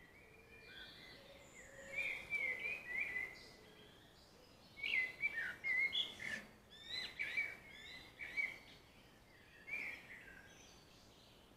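A songbird singing: several short, warbling, chirping phrases with pauses between, loudest through the middle.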